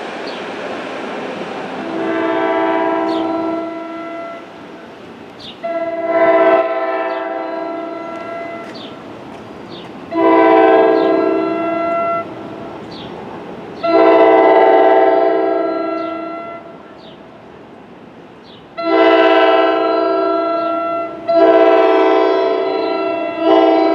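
Approaching NJ Transit train sounding its horn in a series of long, loud chord blasts a few seconds apart, the blasts coming closer together near the end. Faint bird chirps are heard between the blasts.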